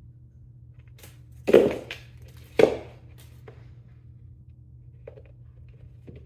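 Two heavy thumps about a second apart, with lighter taps around them, as a cat leaps and lands while chasing a feather wand toy. A steady low hum runs underneath.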